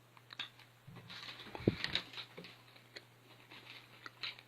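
Faint chewing of a tough piece of dried biltong, with scattered small mouth clicks and a short low thump about halfway through.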